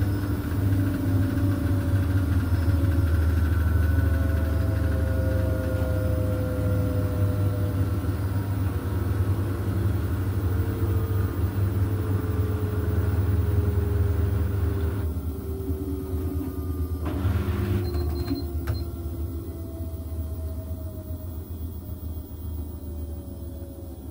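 Beko front-loading washing machine spinning its drum, a steady motor hum and whine. Several tones slowly fall in pitch as the drum slows, and the sound gets quieter over the second half.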